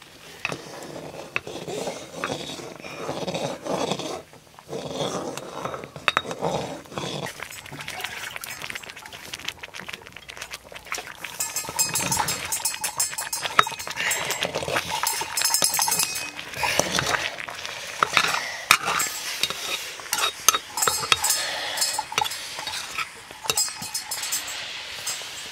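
A long metal stirrer scraping and clinking against a metal cooking pot as rice is stirred over a fire, with many short clicks throughout.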